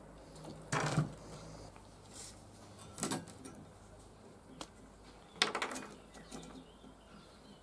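Three brief clatters of metal parts and tools handled on a wooden workbench, the loudest a little past halfway, over a faint low hum.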